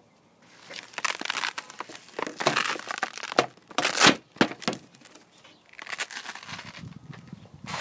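Close-up rustling and crinkling of a round pink plastic toy being opened and handled on a glass tabletop, with sharp plastic clicks and knocks; the loudest knock comes about four seconds in.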